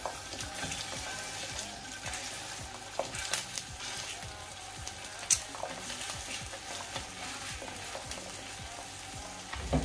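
Hot oil sizzling steadily in a frying pan as raw minced beef for a burger patty is spooned in and pressed flat. A few sharp clicks of the metal spoon against the pan.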